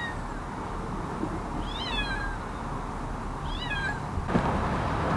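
A kitten mewing three times, short high-pitched mews about two seconds apart, each falling in pitch.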